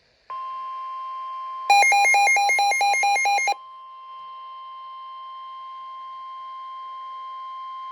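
NOAA Weather Radio 1050 Hz warning alarm tone, a single steady pitch that marks the start of a flash flood warning broadcast. For about two seconds, starting under two seconds in, a much louder rapid beeping alarm of about five beeps a second sounds over it.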